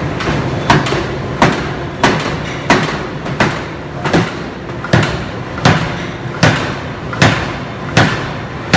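C61-105 3-ton hydraulic open-die forging hammer striking a red-hot flange blank in a steady rhythm: about a dozen sharp blows, a little more than one a second, each with a short metallic ring, over a steady low hum.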